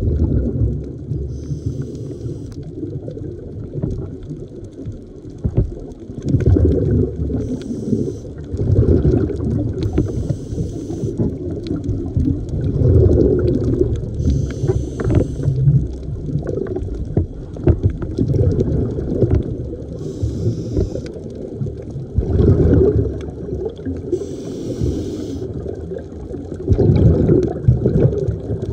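Scuba diver breathing underwater through a regulator: a hissing inhale, then a rumbling, gurgling rush of exhaled bubbles, about once every five or six seconds.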